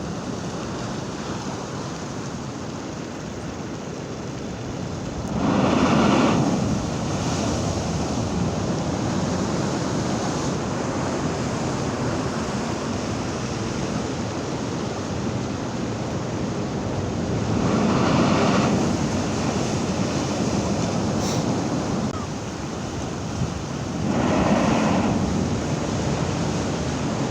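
High sea waves breaking against the shore over a steady rush of surf, with three big waves crashing louder about six, eighteen and twenty-five seconds in. Wind buffets the microphone throughout.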